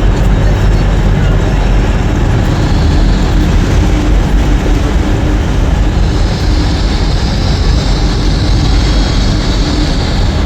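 A train running at a station platform: a loud, steady rumble with a faint hum, and a hiss coming up about six seconds in.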